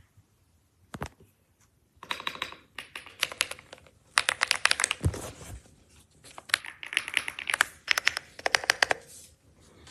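AULA S98 Pro gasket-mounted mechanical keyboard being typed on: a single keystroke about a second in, then quick bursts of keystrokes with short pauses between them.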